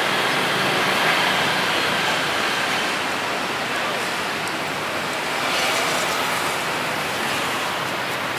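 Steady street traffic noise: a continuous hum of passing motorbikes and cars, swelling slightly about two-thirds of the way through.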